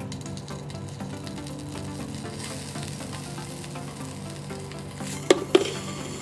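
Hot metal ball sizzling as it melts down into a plastic bottle cap, with two sharp pops about five seconds in. Background music plays underneath.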